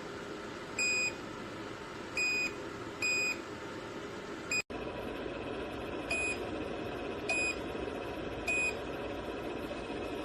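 JIBUFI 1500W PTC space heater's control panel beeping as its settings are pressed: about seven short, high beeps a second or so apart, over the steady whoosh of its fan.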